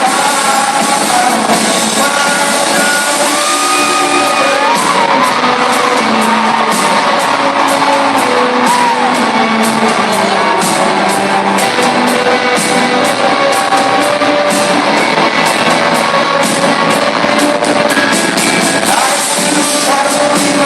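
Rock band playing live with a lead vocalist singing, loud and rough as heard from the audience. The drums and cymbals hit harder and faster from about four seconds in.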